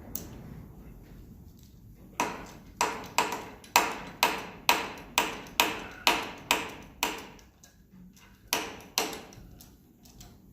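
A run of about a dozen sharp, ringing metallic clicks, about two a second, then two more after a short pause. They come from hand tools working on the thickness planer's metal parts while its bolts are being snugged down.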